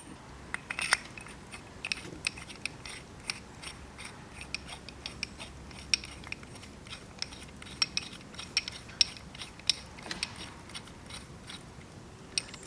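Light, irregular metallic clicks and ticks of a small hand tool and metal parts as the aluminium retaining screw is turned down into a motorcycle carburetor slide with a ground-down bolt used as a driver.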